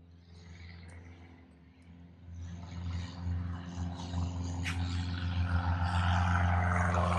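A single-engine light airplane's piston engine and propeller: a steady low drone that grows steadily louder from about two seconds in as the plane approaches.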